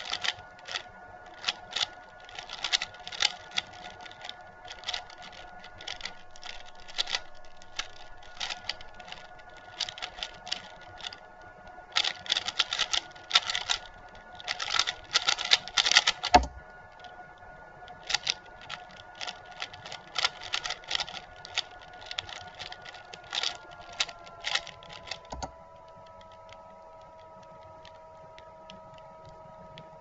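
Stickerless Valk 3 speedcube being turned fast in a speedsolve: rapid plastic clicking and clacking of layer turns in uneven flurries. There is a low thump midway, and the turning stops with another thump about 25 seconds in.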